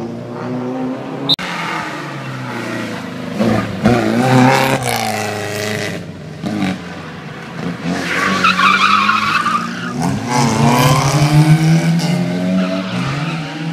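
Rally car engine revving hard, the pitch rising and falling through gear changes as the car slows for a bend and accelerates away, with tyres squealing briefly about eight seconds in. A single sharp crack about a second in.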